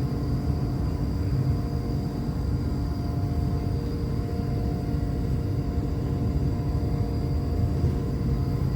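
Steady running noise heard inside a moving electric passenger train: a continuous low rumble from the wheels and track, with faint steady whines held throughout.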